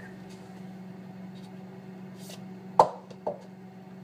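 Steady low hum of a refrigerator running, with two sharp knocks about half a second apart near the end, the first louder.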